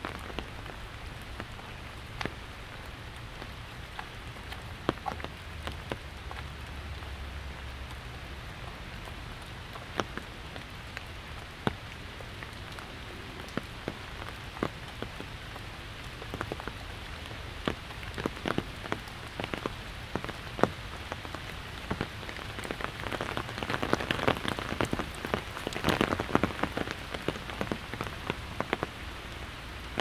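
Rain drumming on an umbrella held overhead: separate heavy drops tap on the canopy over a steady hiss of falling rain, and the taps come thicker for a few seconds about three-quarters of the way through.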